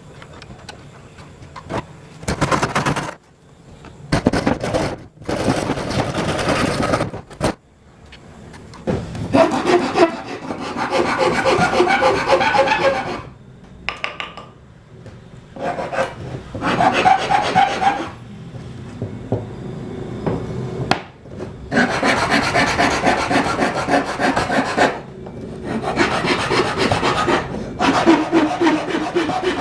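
A tool working wood in repeated rasping bursts of one to three seconds each, with short pauses between them.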